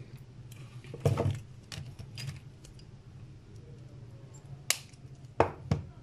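Hands handling the wires of a Cat6 network cable and an RJ45 crimping tool: scattered small clicks and rustles, with three sharper snaps near the end as the crimping tool is picked up. A low steady hum runs underneath.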